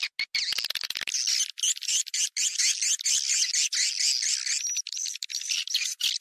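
Swiftlet lure call: a dense, rapid, high-pitched twittering of swiftlet chirps, broken by many brief gaps, played to draw swiftlets to a swiftlet house.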